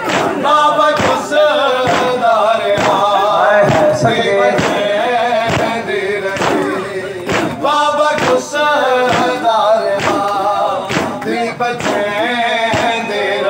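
Male voices chanting a noha lament while a crowd of men strike their chests in unison. The slaps land in a steady beat about every two-thirds of a second under the singing.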